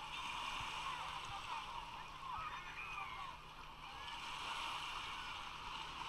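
Busy beach crowd: a steady babble of many distant voices, with scattered shouts and calls from bathers and children rising and falling above it.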